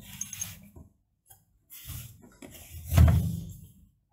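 Cardboard product box being handled and turned over on a padded tabletop: rubbing and scuffing of the cardboard with soft knocks, the loudest knock about three seconds in.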